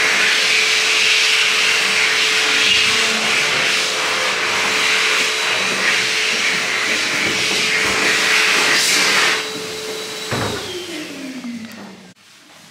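An electric blower motor, vacuum-cleaner-like, runs steadily with a rushing airflow and a whine. About ten seconds in it is switched off with a click, and its whine falls in pitch as the motor spins down.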